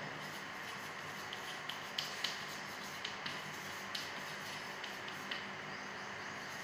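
Chalk writing on a blackboard: a string of faint, irregular taps and light scratches as letters are written, over a steady low hiss.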